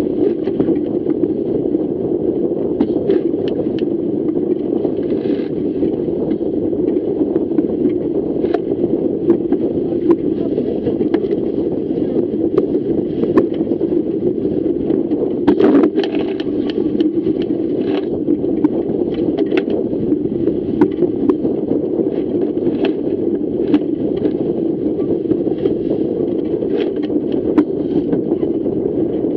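Steady rush of wind and water as a Fireball racing dinghy sails fast through chop, with frequent small ticks and knocks of spray and hull slaps throughout.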